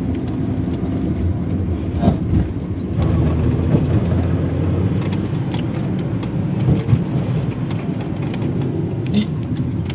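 Steady low rumble of a moving vehicle heard from on board, engine and road noise with a few small knocks and rattles.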